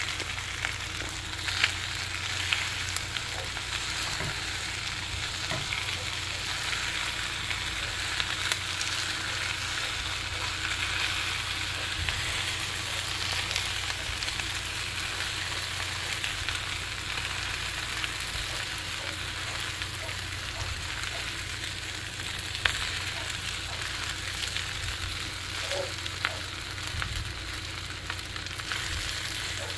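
Rice and onions sizzling steadily in a hot HexClad hybrid wok, as silicone-tipped tongs break up and stir the rice, with occasional light clicks of the tongs against the pan.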